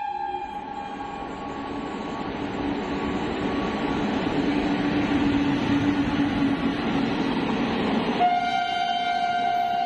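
Indian Railways train passing by: a horn note dies away in the first second, the train's running noise builds steadily louder, then a long steady horn blast starts about eight seconds in at a lower pitch.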